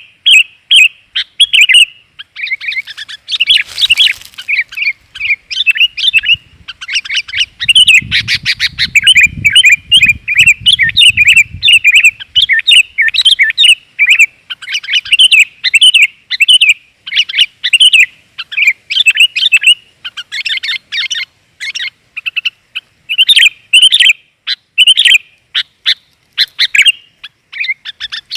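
Sooty-headed bulbul (kutilang), a female calling in rapid, continuous chattering chirps, the kind of call played to lure males. A low rumble sits under the calls for a few seconds near the middle.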